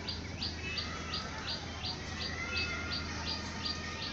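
A bird calling a rapid, even series of short, high chirps that fall in pitch, about three a second. Fainter, lower whistled notes sound behind them.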